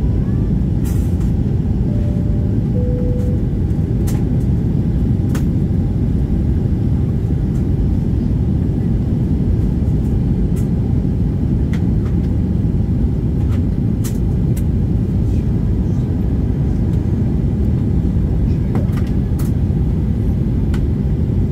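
Steady low cabin roar of a Boeing 737-800 on descent, its CFM56 engines and the airflow heard from inside the cabin at a window seat. About two seconds in come two short tones a second apart, the second one lower, and a few faint clicks.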